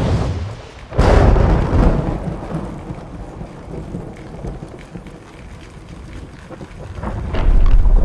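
Thunder cracks about a second in and rumbles away over several seconds over steady rain. A second heavy rumble of thunder builds near the end.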